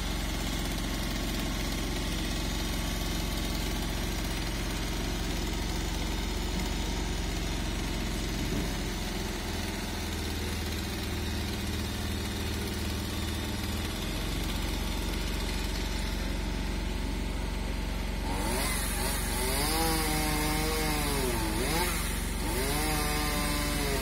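Engine running steadily, most likely the truck-mounted aerial lift's. In the last few seconds a chainsaw revs up and down several times.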